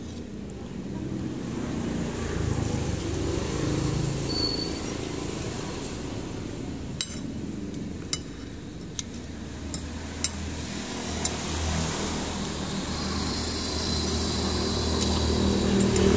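Vehicle engines from passing road traffic running steadily, growing louder near the end, with several sharp clinks of a metal fork and spoon on a plate between about seven and ten seconds in.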